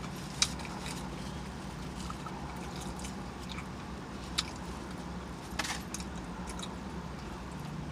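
Close-up chewing with a few sharp, wet mouth clicks, heard three times, over a steady low hum.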